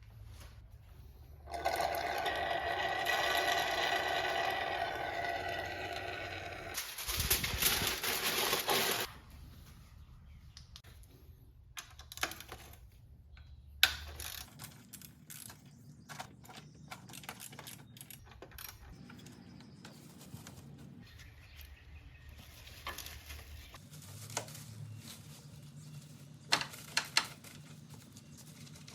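Assorted clicks and clinks of tools and small metal parts being handled. Early on a steady whirring sound with several held tones lasts about five seconds, followed by a loud hiss of about two seconds.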